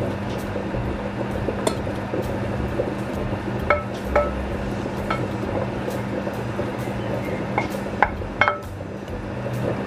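Wooden spoon scraping food out of a non-stick wok into a stainless steel pot, the pan clinking against the pot's rim a few times: two clinks near the middle and three more near the end, each with a short metallic ring, over a steady low hum.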